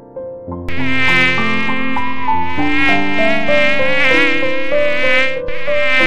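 A flying insect buzzing loudly and steadily, its pitch wavering slightly, with a brief dip about five and a half seconds in.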